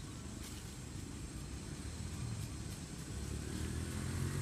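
A motor engine running with a low steady hum that gets louder over the last second or so.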